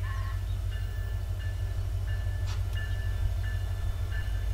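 Low, steady rumble of a diesel freight locomotive approaching from a distance. Short, high, steady tones repeat on and off above it.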